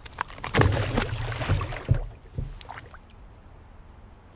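Water splashing and knocks against a kayak's hull as a pike is put back over the side, with a loud, noisy stretch and several sharp knocks in the first two and a half seconds.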